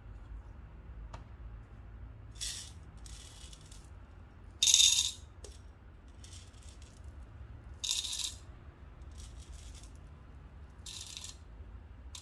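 Roasted whole coffee beans rattling into a dosing cup on a scale in about six short pours, the loudest about five seconds in, as an 18 g single dose is weighed out.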